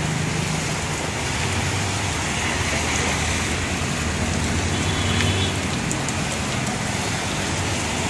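Steady rain falling on a wet road, with the low hum of passing motorcycles and cars underneath.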